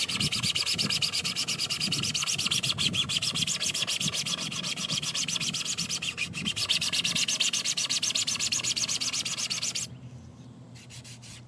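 Sandpaper of about 220 grit on a handheld sanding tool rubbing over a 3D-printed PLA part (PolyLite CosPLA) in quick, steady back-and-forth strokes, smoothing the print's layer lines. The sanding stops abruptly about ten seconds in, followed by a few brief strokes near the end.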